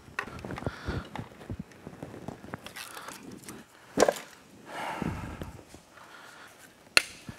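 Hand tools clicking and clinking against the aluminium crankcase of a Polaris RZR 900 XP engine as its case-half bolts are worked loose, with two sharp metal knocks, one about four seconds in and one near the end.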